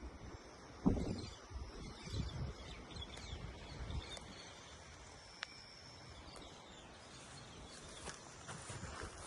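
Outdoor countryside ambience with faint bird chirps and a few low thumps on the microphone, the loudest about a second in.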